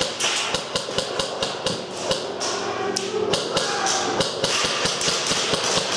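Airsoft guns firing: a fast, irregular clatter of sharp clicks from several guns at once.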